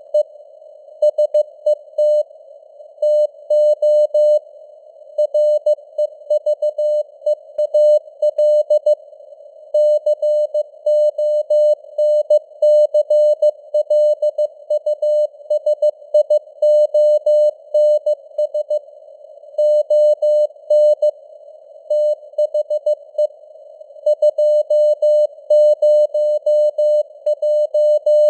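Morse code (CW) being sent at 15 words per minute: a single steady tone keyed on and off in dots and dashes, with short gaps between words. It sits in simulated radio band noise, and its signal strength fades up and down (QSB).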